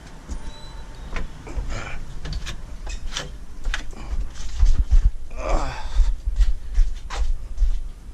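Footsteps thudding on stairs, mixed with clicks and knocks of handling, the thuds heaviest and closest together in the second half. A short breathy vocal sound comes about halfway through.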